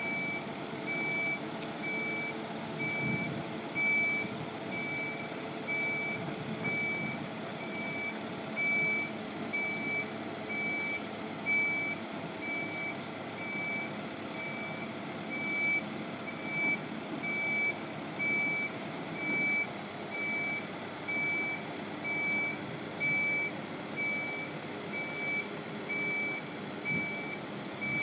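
Rollback flatbed tow truck's backup alarm beeping steadily, about once a second, over the truck's running engine.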